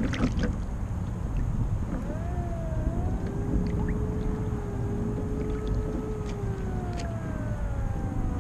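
Wind buffeting the microphone and water rushing and lapping against the hull of a small RC sailboat under way, with a few small splashes near the start. A faint tone glides slowly up and down in the background.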